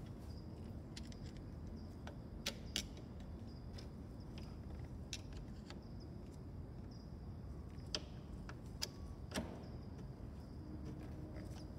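Sparse, short metallic clicks and taps of a screwdriver and pin working at the metal steering-collar fittings of a Cessna 150 nose gear strut, about six over the stretch, over a faint steady hum.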